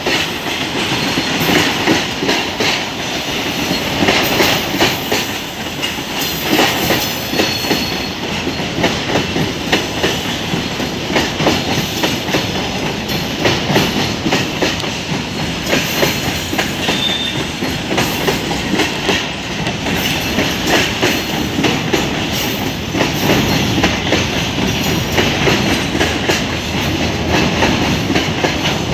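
Freight train rolling past, wagon wheels clicking steadily over the rail joints.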